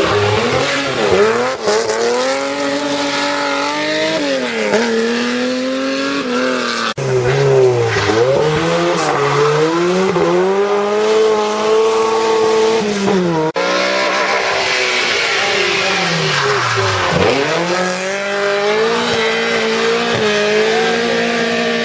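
Rally car engines driven hard, their pitch climbing and dropping repeatedly with gear changes and lifts off the throttle. The sound breaks off sharply twice, about 7 and 13.5 seconds in, and starts again.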